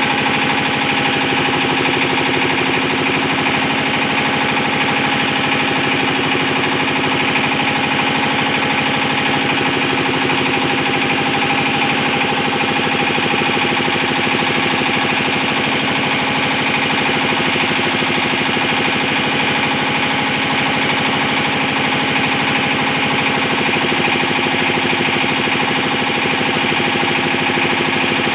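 Single-cylinder diesel engine of a trailer-mounted generator set running steadily at a constant speed under load, with a fast, even pulse.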